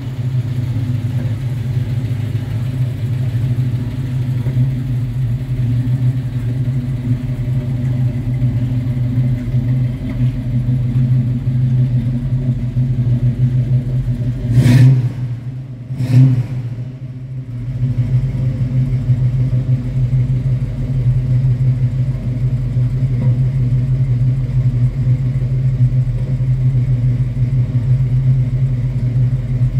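A 1972 Chevrolet Monte Carlo's V8 engine idling steadily, with two short louder blips about halfway through.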